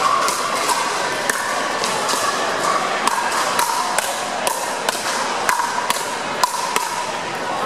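Pickleball paddles striking a hard plastic ball and the ball bouncing on the court during a rally: a quick, irregular series of sharp pops, a few per second, ringing in a large gym.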